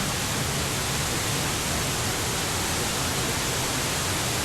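Large waterfall rushing with a heavy flow of water: a steady, even wash of noise with no let-up.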